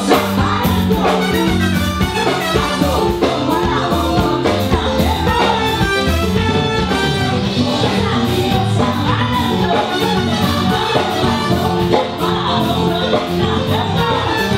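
Caribbean band playing upbeat Latin-style dance music with a steady beat and singing.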